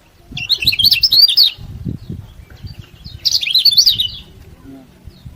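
Lemon-bellied white-eye (kecial kuning) giving two bursts of rapid, high chirping, one about half a second in and another past three seconds.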